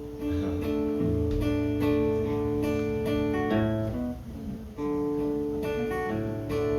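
Acoustic guitar strumming ringing chords as a song's introduction, with a brief let-up about four and a half seconds in before the strumming picks up again.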